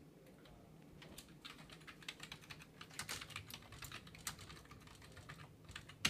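Typing on a computer keyboard: an irregular run of quick, faint key clicks, starting about a second in.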